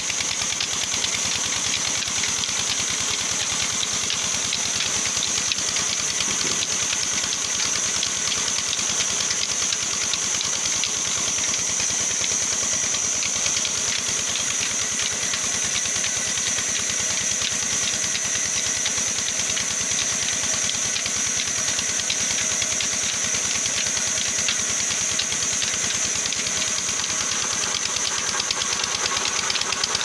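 Large sawmill band saw running steadily while ripping a log lengthwise: a fast, even machine rhythm under a steady high-pitched whine.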